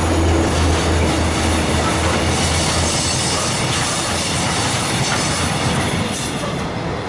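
Freight wagons loaded with steel coils rolling past close by, a dense, loud noise of steel wheels on the rails. Under it, the low drone of the two BB 67400 diesel locomotives hauling the train fades away over the first three seconds, and the rolling noise eases as the last wagon passes near the end.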